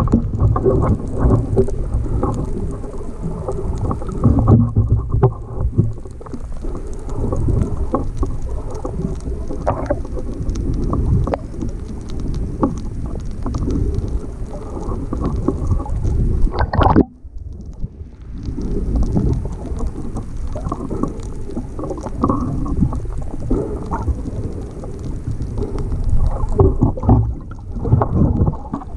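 Muffled underwater rumble and sloshing of water, picked up by an action camera's microphone inside its waterproof housing, dropping away briefly about halfway through.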